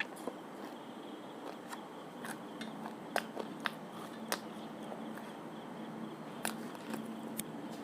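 Close-up eating sounds: food being chewed, with a scattered handful of sharp clicks and smacks over a steady low hum.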